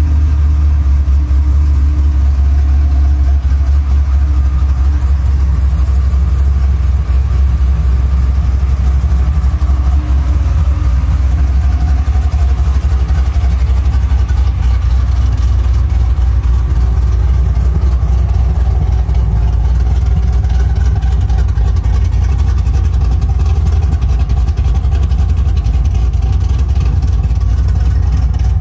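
Freshly tuned, stroked LS7 V8 in a custom Jeep idling with a choppy cam idle, running steadily and loud.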